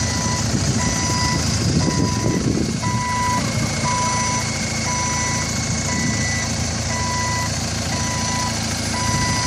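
Hyundai forklift's backup alarm beeping steadily, about one beep every 0.8 seconds, over the low running of its engine while it moves under a heavy load.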